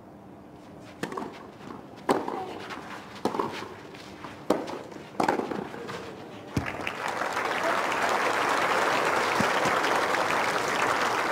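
Tennis ball struck by rackets in a doubles rally, about six sharp hits roughly a second apart. Crowd applause breaks out about six and a half seconds in as the point ends.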